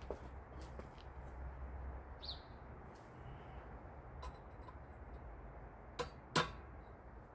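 Two sharp clicks about half a second apart near the end, over a low steady hum, from hand work on a car transmission part being seated. A short bird chirp is heard about two seconds in.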